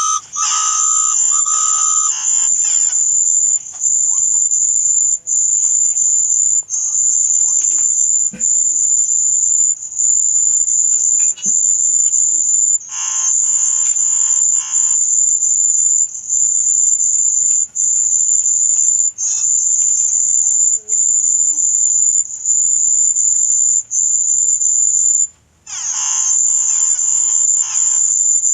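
Sound effect of a steady high-pitched buzzing tone, like a cricket's, cut by brief gaps about every one and a half seconds. A rapid pulsing chirp sounds over it three times: at the start, about halfway, and near the end.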